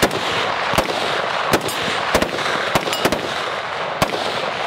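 A string of about seven rifle shots, irregularly spaced half a second to a second apart, from a .308 AR-10-pattern rifle fitted with a muzzle brake, heard over a steady background hiss.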